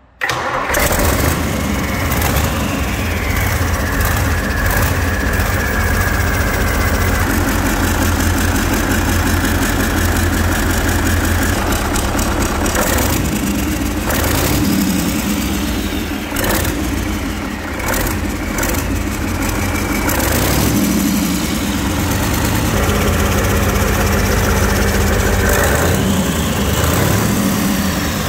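Mercedes-Benz OM 442 V8 diesel truck engine, out of the truck, starting up at once and then running steadily, its speed changing a few times along the way.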